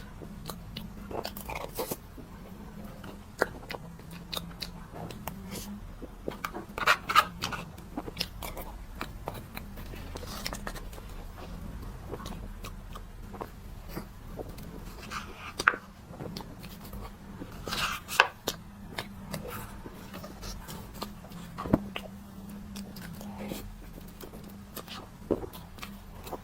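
Close-miked mouth sounds of someone eating old-fashioned cream cake: soft bites, chewing and wet smacks, with scattered sharp clicks and a few louder clusters, over a faint steady low hum.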